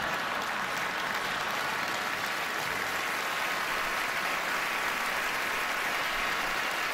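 A large theatre audience applauding, a dense, steady clapping that holds at an even level.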